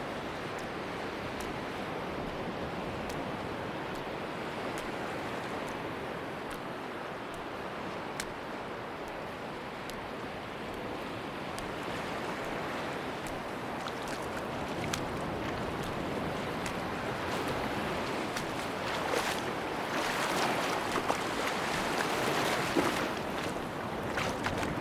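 Sea waves washing onto a beach in a steady rushing wash, swelling louder for a few seconds near the end.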